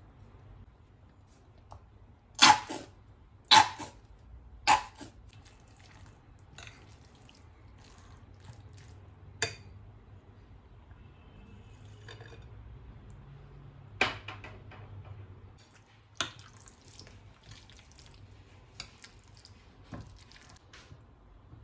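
Kitchen utensils knocking against a bowl while beets and yogurt are handled, a series of sharp knocks, three loud ones close together near the start, with softer clicks and wet food sounds between.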